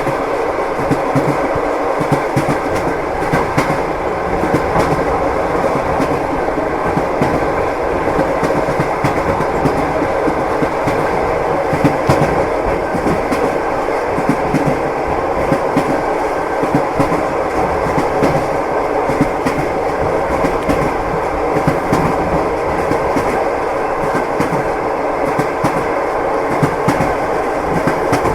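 Passenger train running, heard from inside a sleeping-car compartment: a steady rumble of the carriage with the clickety-clack of the wheels knocking over the rail joints.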